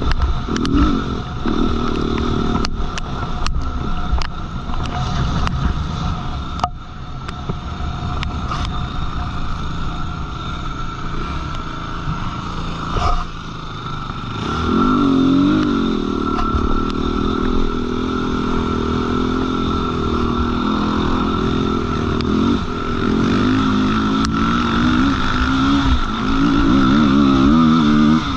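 Suzuki LTR 450 quad's single-cylinder four-stroke engine running hard on sand, its revs rising and falling with the throttle. It eases off about a quarter of the way in, then is revved hard again from about halfway.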